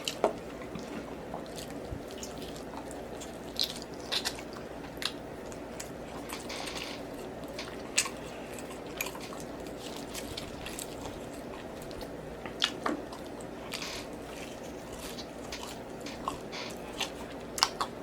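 A person eating close to the microphone: chewing and biting with wet mouth smacks, heard as scattered short sharp clicks over a steady low background.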